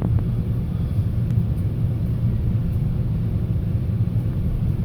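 Steady low rumble of a GO Transit commuter train heard from inside the coach's upper level as it rolls along, with a couple of faint clicks at the start.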